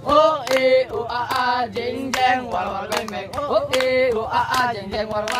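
A group of teenage boys singing a scout cheer (yel-yel) together in unison, with a few sharp hand claps among the singing.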